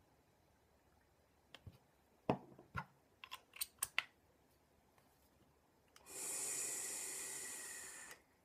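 A handful of sharp clicks and taps, then a steady hiss lasting about two seconds as air is drawn through an e-cigarette while it fires. The hiss fades slightly and then stops abruptly.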